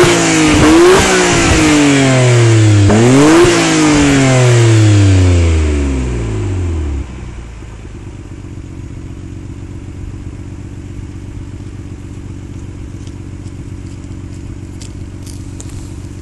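Nissan Skyline GT-R (BNR32) RB26DETT twin-turbo straight-six revved with throttle blips: revs high at first, blipped up again about three seconds in, then falling back and settling to a steady idle about seven seconds in. No abnormal noise on the blips, its cause, a seized coupling fan, having been cured.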